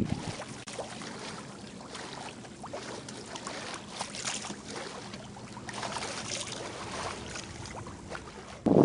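Water rushing and splashing along the hull of a US 22 sailboat under way, a steady hiss that swells and eases, with light wind on the microphone. Right at the end, a loud gust of wind buffets the microphone.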